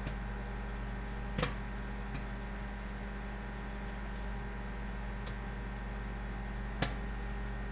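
Microwave oven running with a steady hum while a bag of microwave popcorn finishes, only a few scattered kernels popping, about four single pops several seconds apart: the popping has slowed to the point that signals the popcorn is nearly done.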